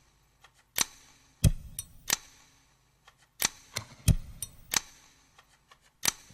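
Zippo lighter being handled, its hinged lid clicking open and shut: a series of sharp clicks in loose groups of two or three, with quiet gaps between.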